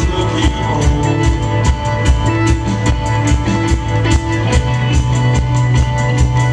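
Live band playing: electric guitars over a deep, held bass note and a quick, steady drum beat.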